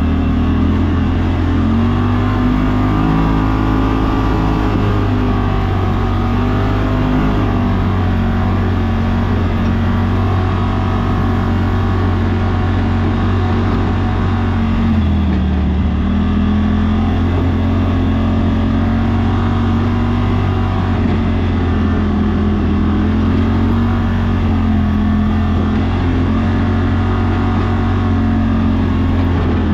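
Side-by-side UTV engine running at trail speed, its pitch wavering with the throttle and dipping briefly about halfway through before climbing again.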